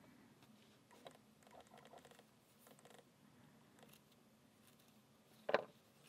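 Faint small clicks and light scraping as a small steel padlock core is turned over in the fingers, then one short, louder sound near the end.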